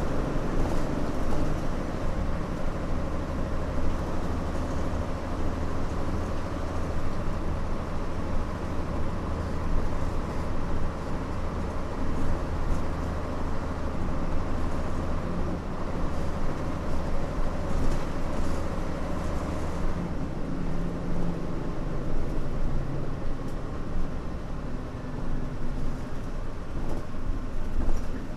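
Mitsubishi Fuso Aerostar city bus's 6D24 inline-six diesel running under way, heard from on board. The engine holds a steady low note, which drops away about twenty seconds in and gives way to a changed engine sound.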